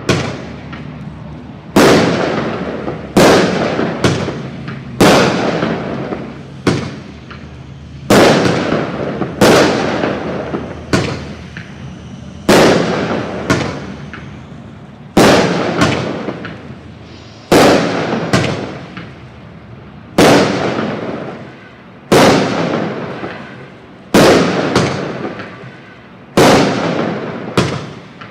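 Fireworks exploding in a steady string, one sharp bang roughly every second or so. Each bang dies away over about a second before the next one.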